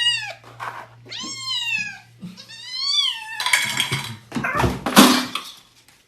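A cat meowing: three drawn-out meows that rise and fall in pitch, about a second apart. They are followed by roughly two seconds of loud, rough noise with no pitch, loudest about five seconds in.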